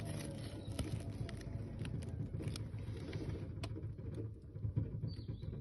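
Air compressor running steadily, with scattered sharp ticks over its low rumble.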